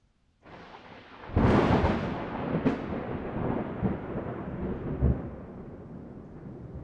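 Thunder: a sudden loud crack about a second in, a second sharp crack a moment later, then a rumble that slowly fades.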